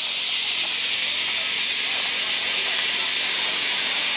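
Zip line trolley pulley rolling along the steel cable: a loud, steady hiss.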